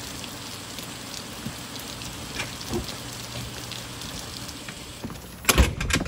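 Heavy rain falling steadily, a hiss of drops on a wooden deck and gravel with scattered light taps. About five and a half seconds in, a couple of loud knocks stand out above the rain.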